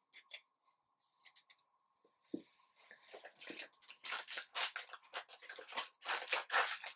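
Scratchy, rapid plastic rustling of soft card sleeves and packaging being handled while a trading card is sleeved, with one light knock about two seconds in.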